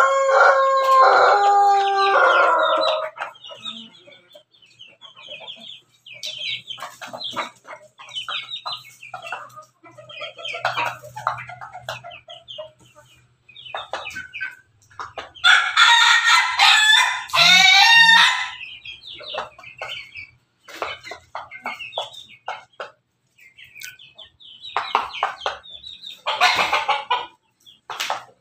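Roosters crowing and chickens clucking. A loud crow of several held notes opens, and a second long crow of rapid up-and-down notes comes about halfway through. Short clucks and calls are scattered in between.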